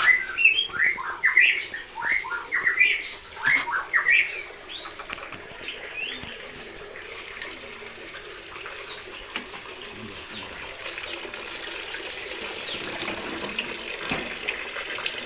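A white-rumped shama gives a rapid series of short, sharp chirping calls, about a dozen in the first four seconds, at a breeding cage where the nest holds two eggs. After that the calls thin out, and a steady rushing noise like running water slowly grows louder.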